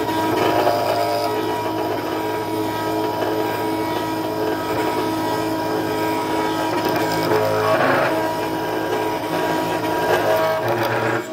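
4-axis CNC router carving a foam block: the spindle runs steadily while the stepper motors whine in a few steady tones that shift in pitch as the axes change direction, about seven and a half seconds in and again near the end.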